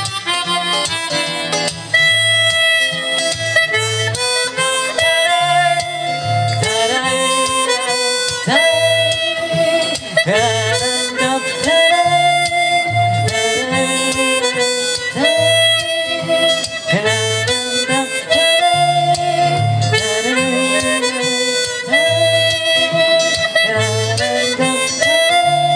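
Harmonica playing an instrumental passage with bent notes over guitar accompaniment, the closing part of a song.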